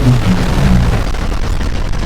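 Loud, dense rumbling noise from an added sound-effect mix, with a few short low pitched notes in the first second.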